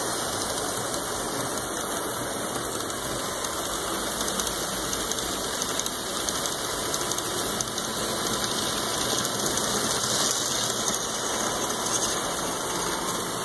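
HO scale model trains running on the layout: a steady whir and rumble of their motors and wheels on the track as a train crosses the bridge above.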